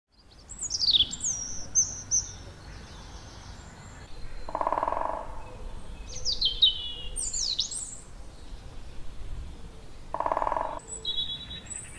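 Songbirds singing, with quick high chirps and descending whistled phrases in several bursts. There are also two short, buzzy, steady lower tones, one about halfway through and one near the end.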